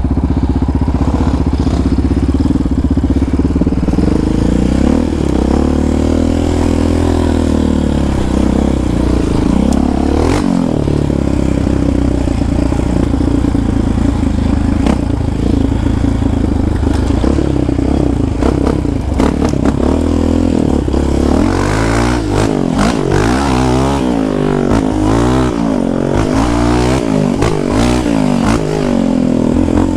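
A Yamaha Raptor 700R ATV's single-cylinder four-stroke engine under throttle while riding. Its pitch is fairly steady at first, then from about twenty seconds in it revs up and down quickly again and again, with short knocks and clatter mixed in.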